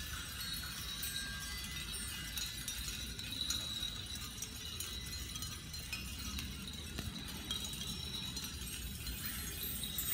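Light, scattered clinking and tinkling from small objects hung on threads swinging and touching, like a shell wind chime, over a faint steady high tone.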